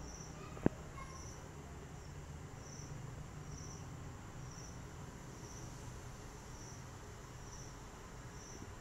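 Cricket chirping at a steady pace, a short high chirp a little under once a second, over a low hum, with one sharp click about half a second in.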